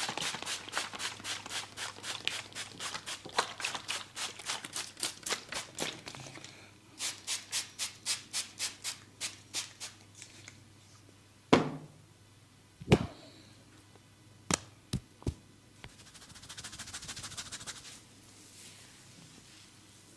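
Barber's hands tapping and slapping on a head during a head massage, in a fast steady rhythm of about five strikes a second, then slower at about three a second. About halfway through come two loud sharp cracks a second and a half apart, followed by a few lighter snaps.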